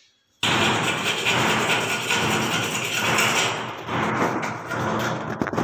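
A small hacksaw blade sawing by hand into a broken brass threaded fitting set in a wall, a loud harsh rasping scrape. It starts abruptly about half a second in.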